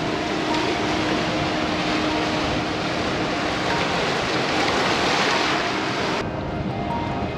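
A steady rushing noise that cuts off abruptly about six seconds in, over background music with held notes.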